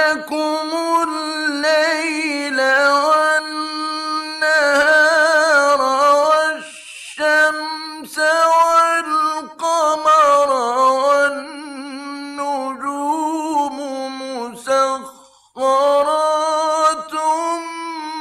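A male Quran reciter chanting in the melodic mujawwad style: long held, wavering notes drawn out over vowels, broken by two short breaths, about seven and about fifteen seconds in.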